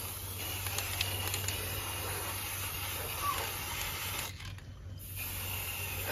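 Aerosol spray-paint can hissing in one long spray of about four seconds, a short break of under a second, then a second spray of about a second. A bird chirps faintly once near the middle.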